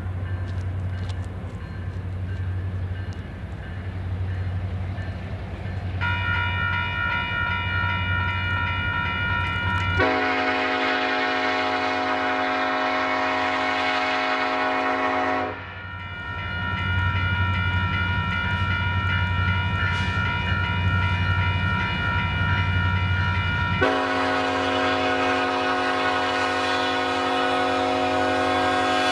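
Union Pacific freight locomotive's air horn blowing two long blasts, its whistle signal for the grade crossing. Under them the crossing's warning bell rings steadily, starting about six seconds in as the crossing signal activates.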